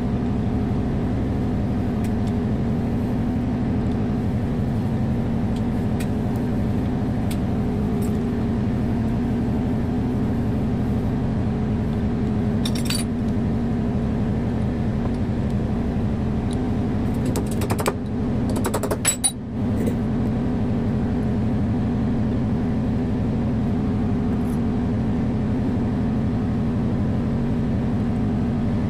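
A steady machine hum runs throughout, with a few light metallic clinks of small steel parts being handled and fitted on a hydraulic control valve, bunched about two-thirds of the way through.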